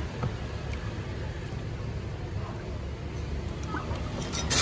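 A steady low rumble of background traffic or machinery, with a couple of faint clinks of a spoon against a glass dessert cup. Right at the end a louder scraping hiss starts.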